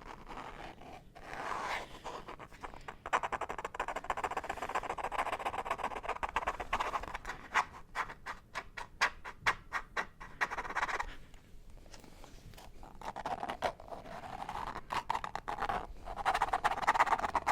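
Fingers scratching fast on a peanut butter jar lid: a dense run of rapid crackly scratches and clicks that eases off about two-thirds of the way through, then picks up again.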